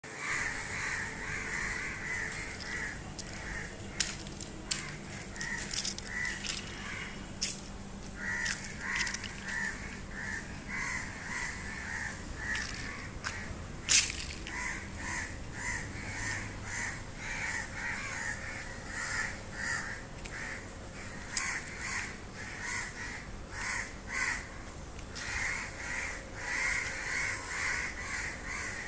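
A flock of crows cawing at dusk, many short calls overlapping without a break. A few sharp clicks stand out, the loudest about halfway through.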